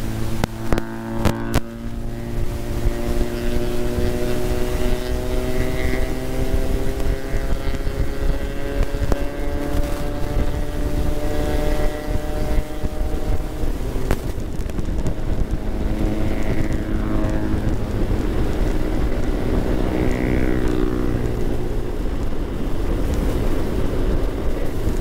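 Yamaha Xmax scooter engine running on the move, its pitch climbing slowly as it gathers speed for about twelve seconds, dropping, then building again, over a steady low rumble. A few sharp knocks come in the first two seconds.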